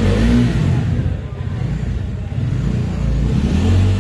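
New Bajaj Dominar 400's single-cylinder engine revved while standing: loud at the start, dropping back about a second in, and climbing again near the end.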